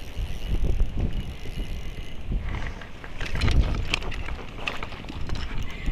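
Spinning reel being wound in, a steady mechanical whir, with wind buffeting the microphone. From about two and a half seconds in comes a run of sharp clicks and rustles as the landing net is brought out over the water.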